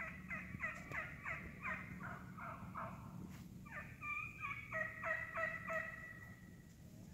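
A flock of eastern wild turkeys calling as they feed: two runs of repeated falling notes, about three a second, the second run starting about three and a half seconds in.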